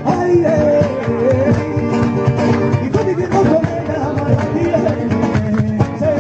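Flamenco music: guitar playing with a voice singing a wavering, ornamented melody over it.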